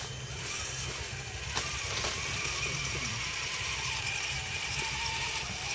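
Scale RC crawler trucks' electric motors and gears whining as they crawl over dirt and dry leaves, the whine wavering in pitch with the throttle, with a few light clicks.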